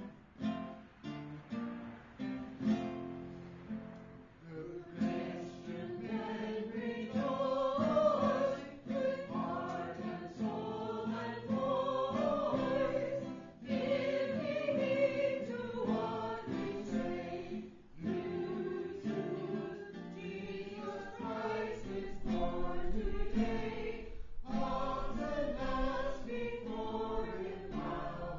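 Small group of carolers singing a Christmas carol to acoustic guitar accompaniment. The guitar strums alone for the first few seconds before the voices come in.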